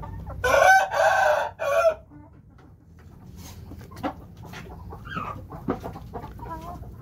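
A rooster crows loudly about half a second in, for about a second and a half. Then come quieter sharp pecks as chickens peck feed from a hand, with a few soft clucks.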